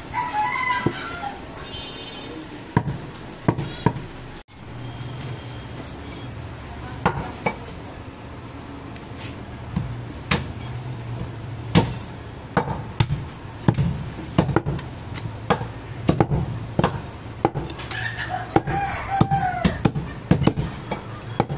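Butcher's cleaver and knife chopping goat meat on a wooden log chopping block: irregular sharp knocks of the blade hitting the wood, over a steady low hum.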